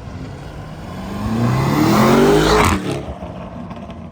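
A car engine revving up as it accelerates, its pitch climbing for about a second and a half before cutting off abruptly near the three-second mark.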